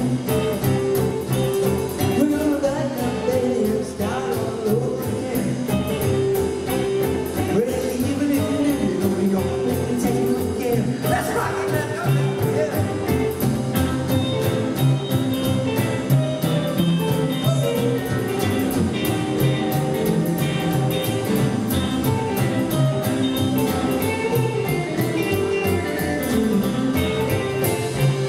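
Rock 'n' roll band playing live, with electric and acoustic guitars, upright double bass and a drum kit keeping a steady beat, and a male singer.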